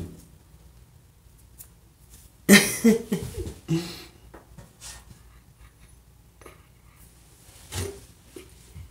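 A person's brief vocal sounds, not words: a loud burst with sliding pitch about two and a half seconds in lasting about a second and a half, and a short one near the end, over quiet room tone.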